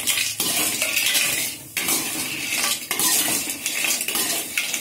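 A spoon scraping and stirring cinnamon sticks around a pan as they roast in a little ghee, in strokes with short breaks.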